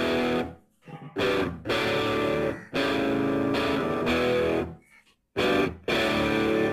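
Background music led by guitar, played in stretches of held chords broken by short, abrupt gaps.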